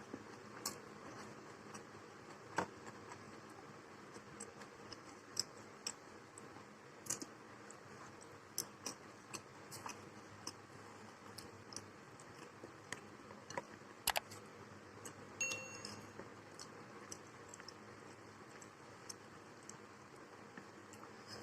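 Eating sounds: irregular light clicks and taps of a utensil against a plate, with quiet chewing, and one short ringing clink about two-thirds of the way in.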